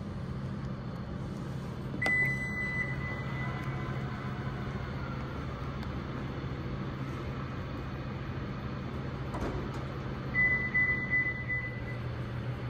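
Power liftgate of a Lexus TX closing. A click is followed by a steady high warning beep for about two seconds, then a faint motor whine as the gate travels down. Near the end a second, broken-up high beep sounds, over a steady low hum.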